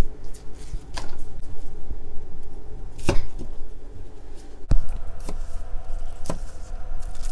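Cleaver chopping green onions on a wooden chopping block. A few scattered knocks come first, then from about the middle a run of chops at roughly two a second.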